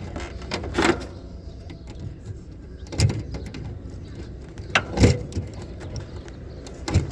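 Several sharp knocks and clicks from hands and tools working on the HVAC unit's parts, the loudest about five seconds in, over a steady low hum.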